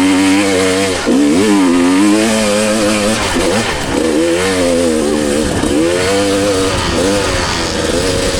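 Two-stroke dirt bike engine revving up and down as the throttle is worked, its pitch rising and falling several times, with brief dips about a second in and near the middle.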